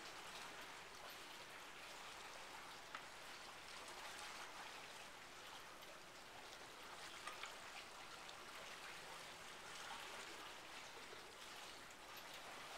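Faint, steady hiss with scattered light crackles: near-silent background noise.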